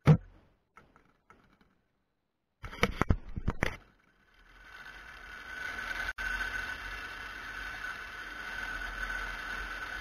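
A few sharp metallic knocks from a line cart's frame, then a steady rolling hiss with a high whine that swells up about halfway through and holds as the cart's wheels run along the overhead ground wire (OPGW).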